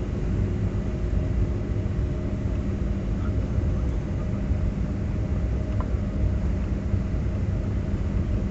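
Steady cabin noise of a Boeing 757-300 taxiing after landing: a low, even rumble from the wheels rolling on the concrete and the jet engines at idle, with a few steady hums over it.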